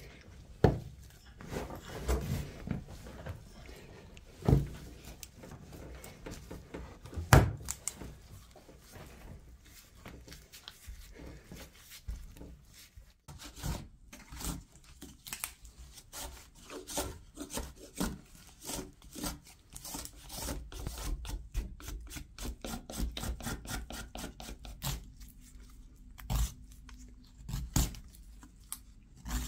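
Green willow rods being worked by hand for wicker repair: rubbing and scraping of wood, turning into dense runs of quick crackling scrapes in the second half as the rods are stripped. A few sharp knocks come in the first several seconds.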